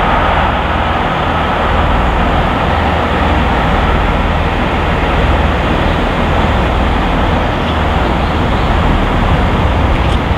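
Steam-hauled train running away along the main line: a steady, dense rumbling noise with no distinct exhaust beats.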